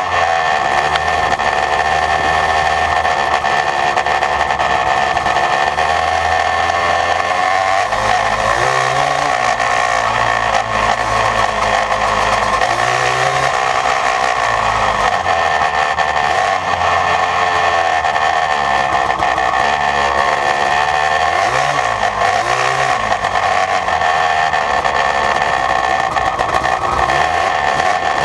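Yamaha Blaster's single-cylinder two-stroke engine, fitted with an FMF Fatty expansion-chamber pipe and Power Core 2 silencer, running under riding load, its pitch rising and falling again and again as it revs up and down. The sound is loud and steady, with a heavy noise haze over the engine note.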